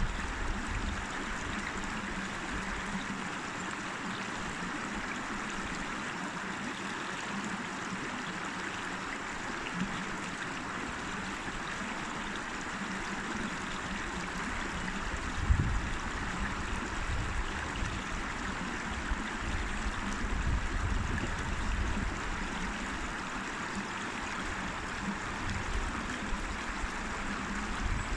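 River water flowing over stones, a steady even rush. Now and then a low rumble rises under it, most plainly about halfway through and near the end.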